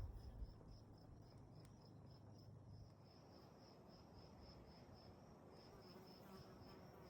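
Faint cricket chirping: a thin high note repeated in an even pulse about four times a second.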